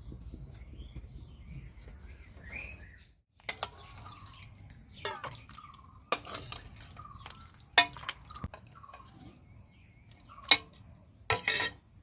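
A low steady rumble and hiss that cuts off about three seconds in. Then a metal utensil clinks and knocks against a cooking pot several times, the loudest knocks near the end, with faint bird chirps between them.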